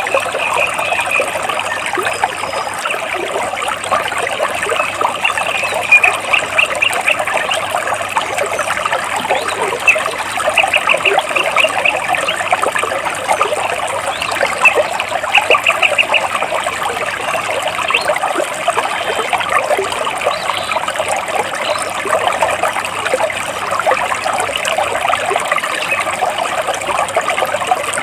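Stream water flowing and trickling between large rocks, with a bird singing short rapid trills a few times over the water's steady rush.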